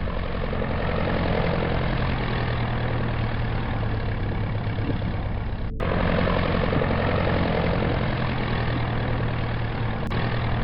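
Steady vehicle engine noise, a dense rumble with a low hum. About halfway through it drops out for an instant and starts again.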